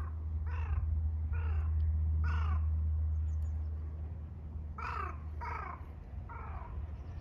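A crow cawing in two runs of three or four short, harsh caws, with a pause of about two seconds between the runs.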